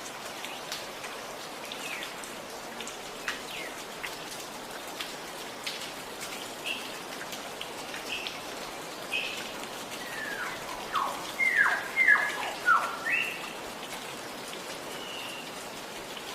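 Water gurgling and dripping steadily, with scattered small drip clicks. About two-thirds of the way through, a bird calls a quick run of four or five loud notes, each sliding down in pitch; a single shorter high call follows near the end.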